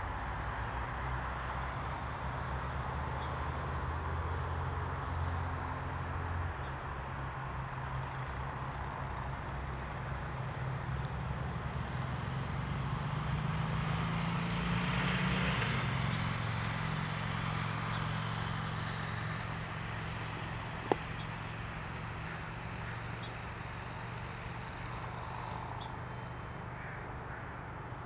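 Steady low rumble of distant road traffic that swells and rises slightly in pitch to a peak about halfway through, as of a vehicle passing, then eases off. A single sharp click comes about three-quarters of the way in.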